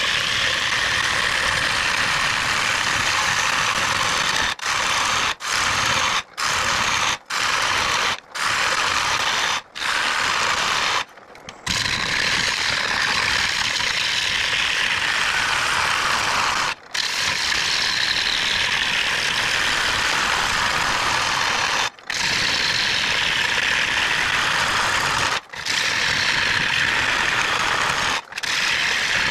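Turning tool cutting into a large pine bowl blank spinning on a wood lathe: a steady, rough scraping hiss as shavings come off. It is broken by about ten short gaps, most of them in the first ten seconds.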